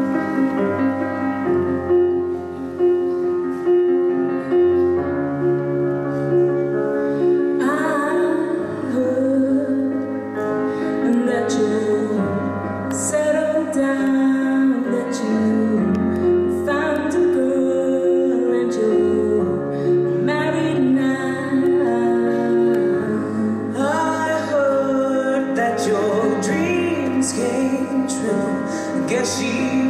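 Piano playing a steady accompaniment of sustained chords, with a solo female voice coming in about a quarter of the way through and singing the verse over it.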